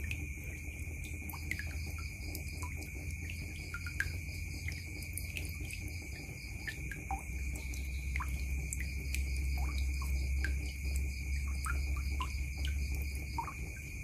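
Water trickling and dripping from a tap into a plastic basin full of water, with many quick, irregular plinks and small splashes on the surface. A steady high-pitched whine and a low hum run behind it.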